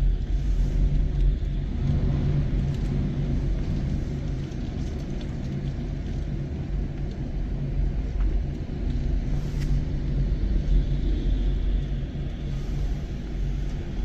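Storm surf and gale-force wind heard as a steady low rumble: big waves breaking over a seawall and seawater washing across a flooded promenade.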